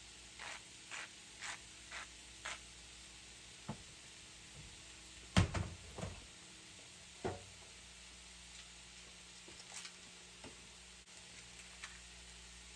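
Crab meat, onion and bell pepper frying quietly in a pan with a faint steady sizzle. Early on there are five soft taps about half a second apart, and about halfway through come a few louder knocks and clatters.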